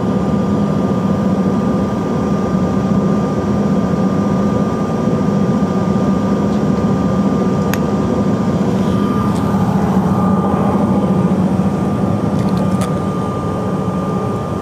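Steady jet engine and air-system noise heard inside the cabin of a Bombardier Challenger business jet on the ground: a loud, even low hum with a thin high whine running over it.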